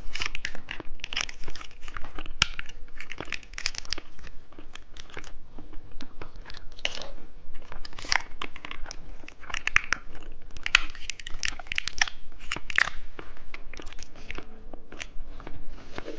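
Close-miked mukbang eating sounds: a plastic candy wrapper crinkling and tearing, mixed with wet chewing of candy. Sharp crackles come in quick irregular clusters throughout.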